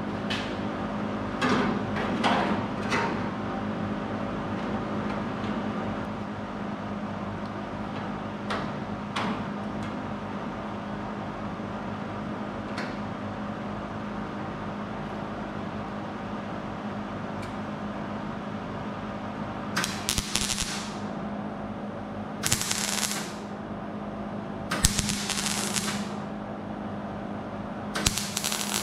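Welder tacking an 18-gauge steel patch panel into a Triumph Spitfire's inner rear quarter structure: four short welding bursts of about half a second to a second each in the second half, over a steady background hum, with a few clicks in the first few seconds.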